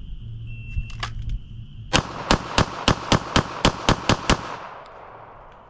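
A shot timer beeps, then a Sig Sauer P320 pistol fires a rapid string of about ten shots, roughly a quarter second apart. The string is a timed drill, run in about 3.8 seconds from beep to last shot.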